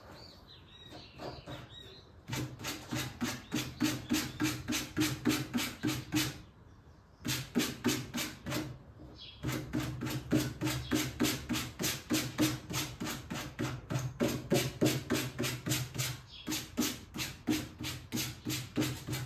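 Cotton cord fringe of a macramê table runner being brushed out on a wooden table to unravel the strands: quick, even scraping strokes, about four or five a second, with two short pauses.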